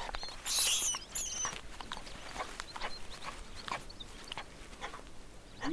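Ethiopian wolf digging and nosing at a grass rat's burrow in dry ground. A loud rush of sniffing or rustling comes about half a second in, with a few short high squeaks just after it, then scattered light scratches and scrapes of earth.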